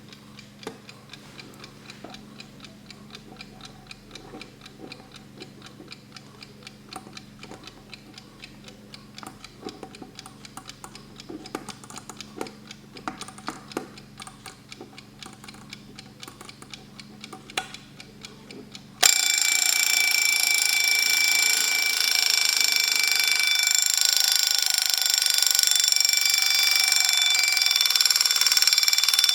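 Kienzle Retro alarm clock ticking softly with even, regular clicks. About nineteen seconds in, its alarm goes off suddenly as a loud, continuous ringing that keeps going.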